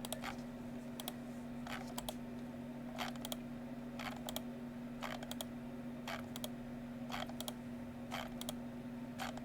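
Computer mouse clicking about once a second, each click a quick press-and-release pair, as a list randomizer is run over and over, with a steady low electrical hum underneath.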